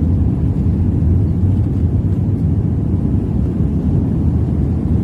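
Jet airliner cabin noise in flight: the steady low rumble of the engines and airflow heard from a window seat.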